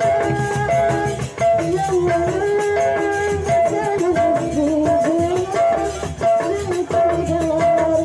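Rudat folk music from Lombok: a woman singing a melody into an amplified microphone over a drum-led percussion ensemble keeping a busy steady rhythm.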